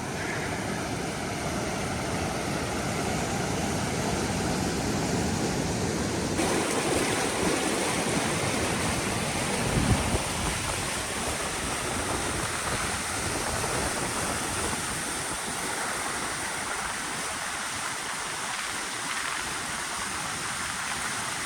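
Steady rush of water from river rapids, with a brief low thump about ten seconds in; the water sound shifts abruptly about six seconds in.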